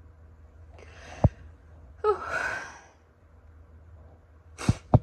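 A woman draws a breath, then lets out a long, voiced sigh of frustration. Two sharp clicks come near the end.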